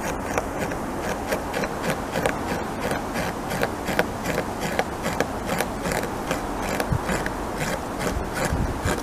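North American beaver gnawing into a tree trunk with its incisors: a quick, irregular series of rasping scrapes of teeth on wood, about three or four a second, as chips are torn from the cut.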